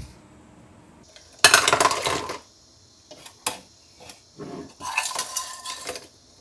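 Freshly dug clams clattering against one another and their container as the catch is handled. There are two stretches of rattling, each about a second long, with a single sharp clink between them.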